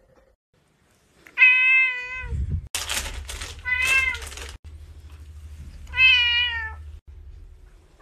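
A domestic cat meows three times while being petted: long, drawn-out complaining meows, the first the loudest. Between the first two meows there is a burst of rustling noise.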